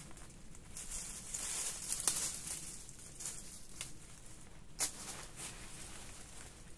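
Nylon tarp fabric and dry fallen leaves rustling in swells as the tarp corner is pulled and adjusted by hand, with two sharp clicks about two and five seconds in.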